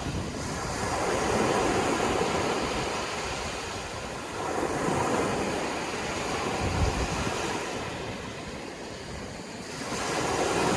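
Sea waves breaking on a shore, the surf swelling and falling back three times.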